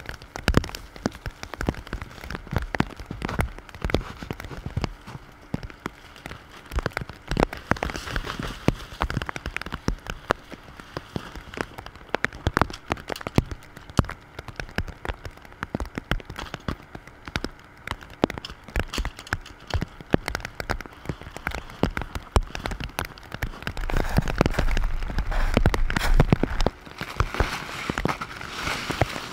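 Freezing rain pattering densely on an ice-crusted tarp, tent and snow, as a steady mass of small irregular ticks. From about 24 seconds in it grows louder with the rustle and crinkle of the stiff, iced-over tarp being pulled down.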